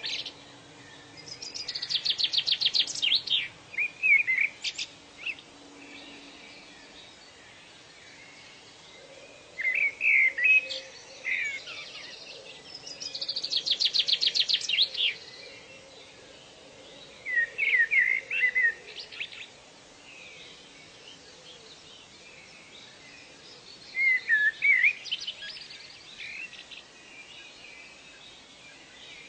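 Songbirds singing in short phrases a few seconds apart: rapid trills and quick swooping chirps, with pauses of faint steady hiss between phrases.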